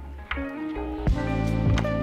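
Background instrumental music with a steady beat, its notes changing in steps and drum hits about a second in and near the end.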